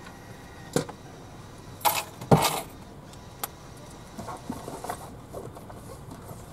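A few sharp clinks and clatters of small metal objects handled inside a car cabin, loudest about two seconds in, followed by a couple of softer knocks over a low steady hum.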